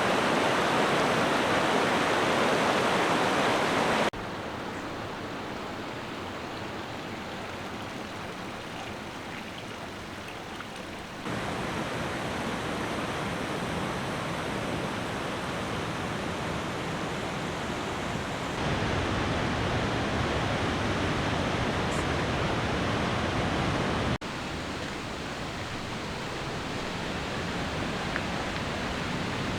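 The River Tees rushing, a steady noise of fast-flowing water. Its loudness steps up or down suddenly about 4, 11, 18 and 24 seconds in.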